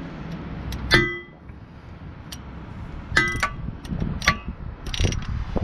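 Socket wrench and metal tools clinking and clanging against steel clutch and underbody parts. There are single sharp, briefly ringing strikes about a second in, at about three seconds and just after four, then a quick cluster of clinks near the end.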